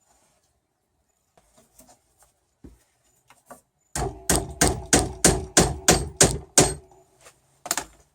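A glue-coated wooden dowel being hammered into a hole in a wooden tiller as a plug: a few light knocks, then a run of about nine sharp hammer strikes at roughly three a second, and a quick pair of strikes near the end.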